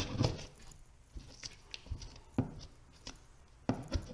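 A chisel scraping and chipping hardened black mirror mastic and torn paper off a drywall wall, in short, irregular scrapes and knocks that come thickest at the start and near the end.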